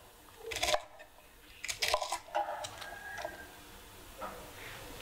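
Chef's knife slicing through crisp green cabbage leaves and knocking on a wooden cutting board, a few separate cuts.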